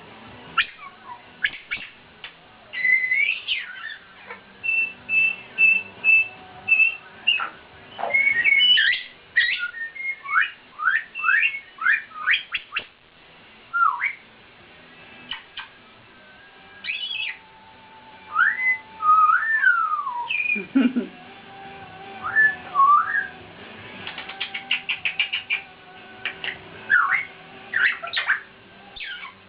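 Two Congo African grey parrots whistling and squawking: quick up-and-down whistles, sharp clicks and a run of short repeated beeps at one pitch, part of it their mimicry of a squeaky toy phone.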